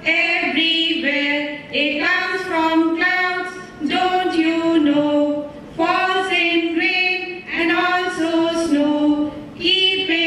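Female vocals singing an unaccompanied song through a stage microphone, in held notes and phrases of about two seconds with short breaths between them.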